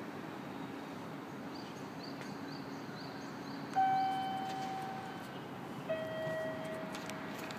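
A two-note chime: a higher ringing tone about halfway through, then a lower one about two seconds later, each fading slowly, over a steady background hum. Faint high chirps repeat during the first few seconds.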